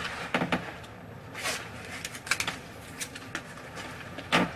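Scattered soft rustles and light clicks from clothing and handling, with a louder short one near the end.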